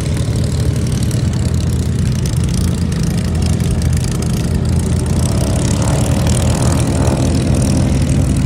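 Propeller aircraft engines of a display formation flying a loop: a steady low drone, with a higher engine note swelling in and out in the second half.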